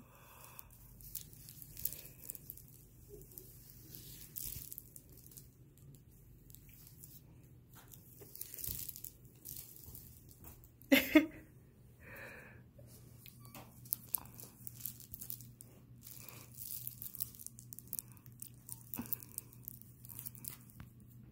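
Sheer nylon fabric of a Sheerfun cat toy rustling and crinkling in scattered scratches as a cat paws and pulls at it, with one louder, sharper sound about halfway through.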